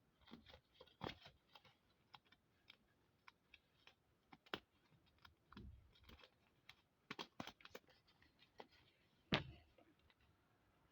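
Faint, irregular light clicks and taps, a few louder, with the loudest knock about nine seconds in.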